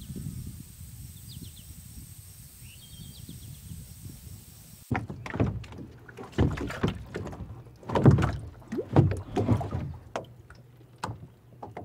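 Birds chirping faintly over a low rumble and a steady high whine. About five seconds in, the sound changes abruptly to a run of irregular thumps, knocks and swishes over a low hum.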